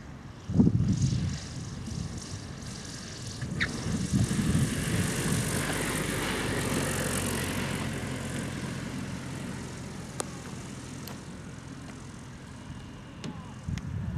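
Motor glider's engine and propeller running as it lands and rolls past, swelling a few seconds in and then fading. A loud low thump comes about half a second in.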